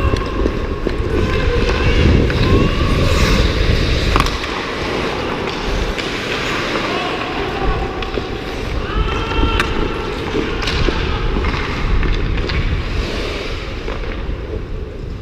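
Ice hockey skates scraping and carving on rink ice during play, with heavy rumble on the microphone. A few sharp clacks of stick and puck cut through, about four seconds in and twice more around the ten-second mark.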